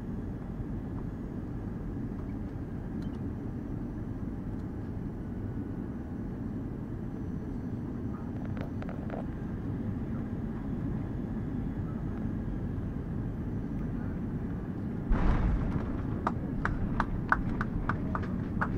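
Airbus A320 cabin noise during the landing: a steady rumble of engines and airflow. About fifteen seconds in, the wheels touch down with a sudden thump and the rumble grows, followed by a rapid, even knocking about four times a second as the wheels roll along the runway.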